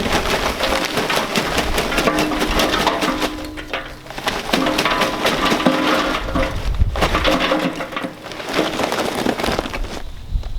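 Lump charcoal pouring from a bag into a smoker's charcoal hopper, a dense clatter of pieces tumbling and cracking against each other and the metal. It comes in three pours, with brief lulls about four and eight seconds in.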